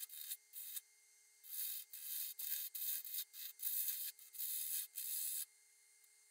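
Turning tool cutting the end grain of a spinning cherry bowl blank on a wood lathe: a run of hissing, scraping cuts as shavings peel off, starting and stopping in short passes and ending about five seconds in, over a faint steady hum.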